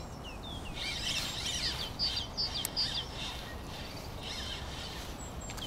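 Small birds chirping and singing: short high notes and quick falling whistles, with a rapid run of repeated chirps about two seconds in, over a steady low background rumble.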